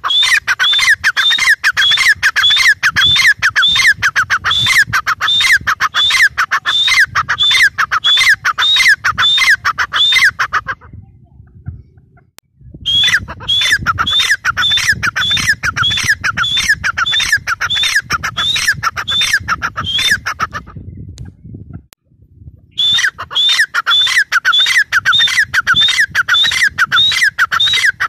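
Gray francolin calling: rapid runs of loud, shrill, repeated notes, several a second and each falling in pitch, in three long bouts broken by two short silences.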